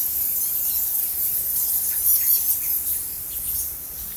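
A colony of bats roosting in a cave, squeaking and chattering in a dense high-pitched twitter. It drops away near the end.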